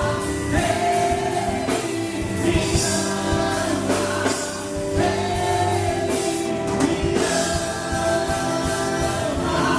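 Live gospel band playing, with singers holding long sung notes over drums and band accompaniment.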